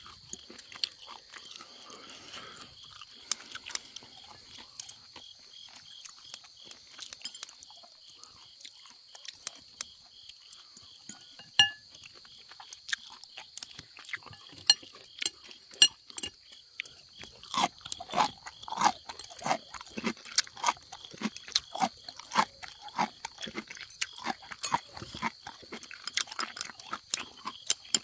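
People eating at a table: chewing and biting on grilled meat, with scattered sharp clicks of chopsticks and utensils on dishes, getting busier about two-thirds of the way in.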